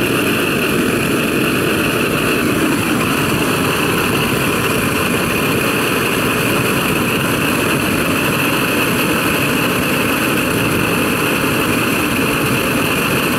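Boucher petrol blow torch burning steadily, its pressurised flame making a constant, even noise.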